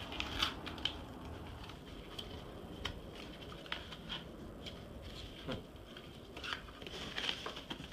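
Small cardboard jewelry boxes and their packaging being handled and opened: irregular light clicks, taps and rustling.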